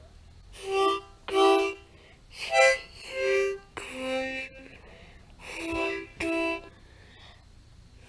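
Harmonica playing seven short chords, two or three notes at once, in the start-stop pattern of a train horn being sounded.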